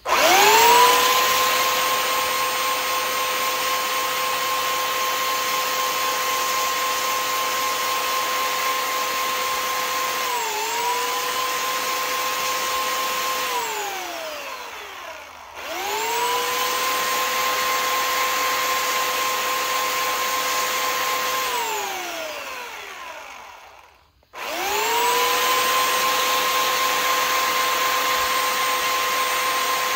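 Electric sanding tool running in three spells: each time it spins up quickly to a steady whine and winds down when switched off, about 13 and 21 seconds in, then starts again near the end. About ten seconds in the pitch dips briefly as the tool is loaded against the work, sanding a steel screw-in field point down.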